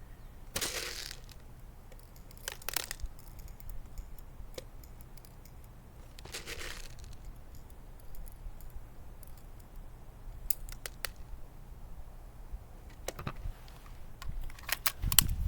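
Handling noise from a Glock 19 airsoft pistol and its magazine: three short hisses, then scattered small metallic clicks, ending in a louder knock.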